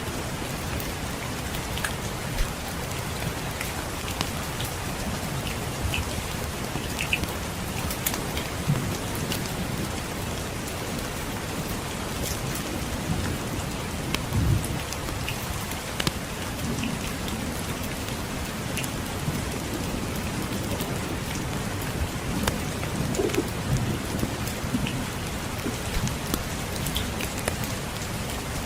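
Steady rainfall with a low rumble of distant thunder that swells now and then, and scattered sharp crackles of a wood fire in a fireplace.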